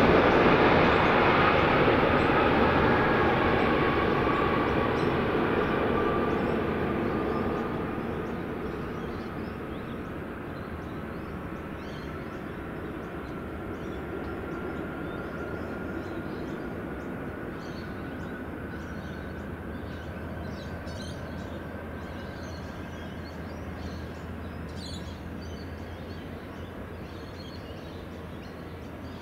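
Airbus A380-800's four jet engines at takeoff power: a loud roar as the airliner passes on its takeoff roll, fading as it accelerates away down the runway, with an engine whine that rises slightly in pitch.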